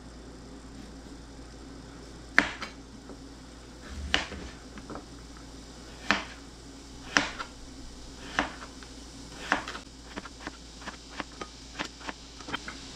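Chef's knife slicing through radishes and striking a plastic cutting board: single sharp cuts a second or two apart, then a quicker run of lighter cuts near the end.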